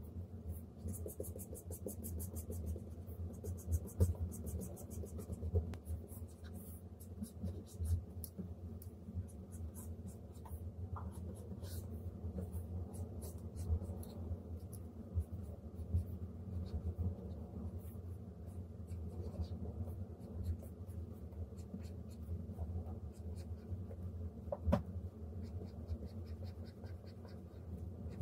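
Stylus nib scratching and tapping on the Huion Kamvas Pro 19 pen display's screen as lines are inked, in short strokes and quick runs of ticks, over a steady low hum.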